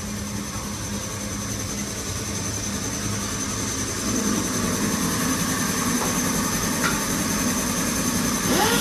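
Steady mechanical running noise with a thin, high, steady whine, growing a little louder about four seconds in.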